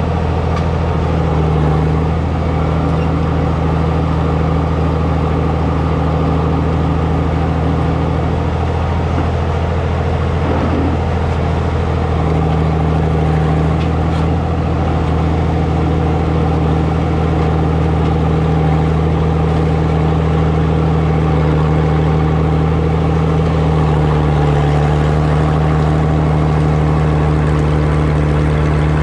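Farmall 560 diesel tractor's six-cylinder engine running steadily while pulling a disk through corn stalks, its note shifting only slightly.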